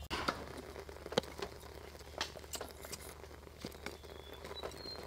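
Faint, sparse crackles and ticks of dry wood kindling being shaved and then catching fire in a clay charcoal stove.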